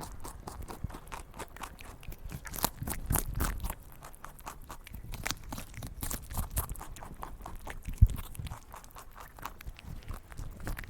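Rabbit chewing food: an irregular run of small, crisp crunches. A single louder thump comes about eight seconds in.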